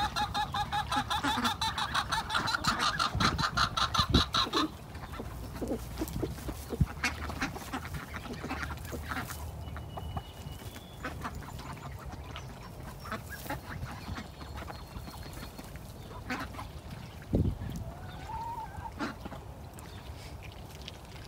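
A flock of khaki Campbell ducks quacking in a fast, loud chatter for the first four and a half seconds. After that it goes much quieter, with scattered short calls and clicks.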